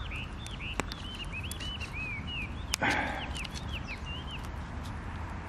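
An animal's rapid series of short, high-pitched rising-and-falling calls, with scattered sharp clicks and a single sharp knock about three seconds in.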